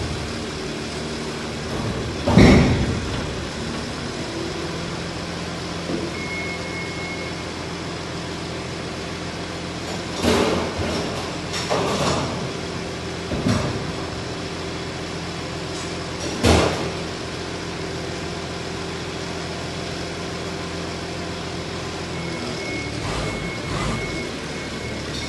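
Toyota forklift engine running steadily inside a steel shipping container, with about five loud metal bangs and clanks as drums are handled. Near the end its reversing beeper sounds in quick repeated beeps as it starts to back out.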